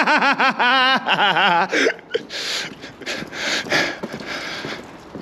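A rapid run of short warbling vocal calls, each rising and falling in pitch, for about two seconds. Then comes a quieter, regular series of steps.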